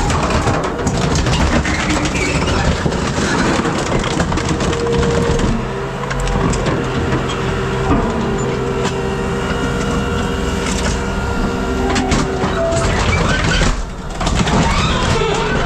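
Scrap metal being crushed by a hydraulic scrap crusher: the machine runs steadily under load while the metal cracks, creaks and crunches, with the machine's sound dropping briefly twice.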